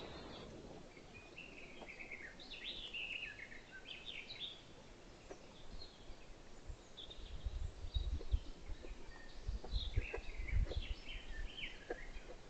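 Wild birds singing and chirping in short phrases. From about seven seconds in, a run of low rumbling bursts and knocks comes in, louder than the birdsong.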